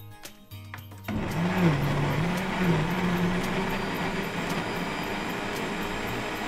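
Saga countertop blender switching on about a second in and running at full speed, chopping sliced apple, pear and lemon in liquid into a purée. Its motor tone dips and rises a couple of times as it catches the fruit chunks, then settles to a steady whirr.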